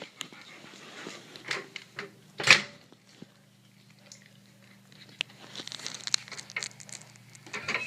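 Handling noises: rustling, taps and one loud knock about two and a half seconds in. A steady low hum follows and runs on to the end.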